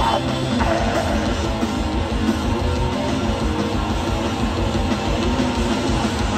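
Live hardcore punk band playing loud and steady: distorted guitars and bass over a driving drum kit, in a stretch with no singing.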